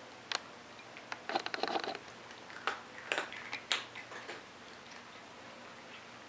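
A cat crunching dry pet treats picked off a carpet: scattered sharp crunches and clicks, with a quick run of them early on.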